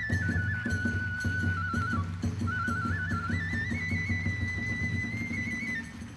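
Hiroshima kagura festival music: a bamboo transverse flute (fue) plays a stepping melody over fast, even beats from taiko drums and hand cymbals (tebyoshi). The beat and the volume ease slightly near the end.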